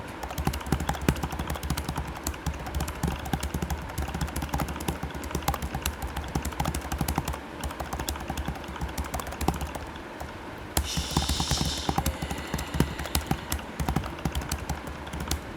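Fast, continuous typing on a computer keyboard during a speed typing test: a dense stream of key clicks with no pauses. A brief hiss cuts in about eleven seconds in.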